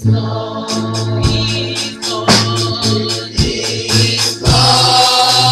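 Live gospel singing by a small group of women vocalists over a keyboard playing a held organ sound with a steady bass note. Sharp, evenly spaced percussion ticks keep the beat during the first half.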